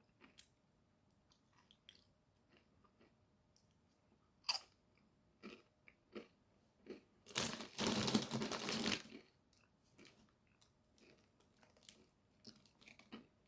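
Close-up chewing of tortilla chips with guacamole: scattered small crunches and mouth clicks, with one sharper crack about a third of the way in and a louder, noisier crunching stretch of under two seconds just past the middle.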